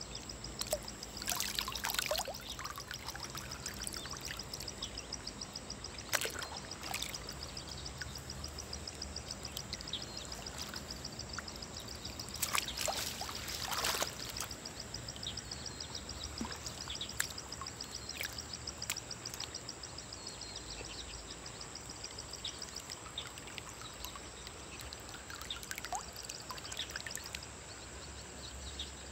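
River water splashing and dripping as fish are worked out of a fishing net in the shallows: a fish flapping in the mesh about a second in, then water pouring off a lifted mesh catch bag about halfway through, with a few small clicks and handling sounds.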